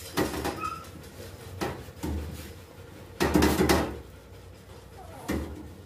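Irregular knocks and scuffs against a stainless-steel dog-bathing tub while a wet Shih Tzu is scrubbed: about five separate bumps, the longest and loudest a little after three seconds in.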